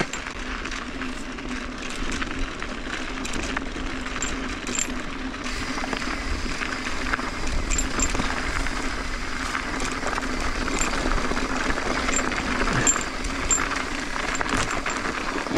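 Mountain bike rolling fast down a dirt and gravel trail: a steady rush of tyre noise over loose ground, with light metallic clinks and rattles from the bike.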